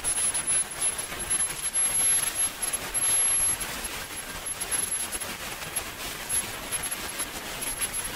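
Swiwin 300 model jet turbine engine running: a steady rushing roar with a thin, high-pitched whine above it.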